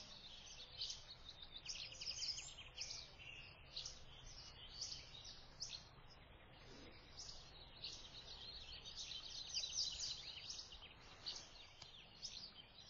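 Daytime outdoor ambience of small birds chirping and twittering in quick, overlapping calls, over a faint steady low rumble.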